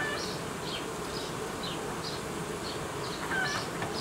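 Honeybee colony buzzing steadily over an open hive, its top frames exposed. Short high chirps come faintly about twice a second in the background.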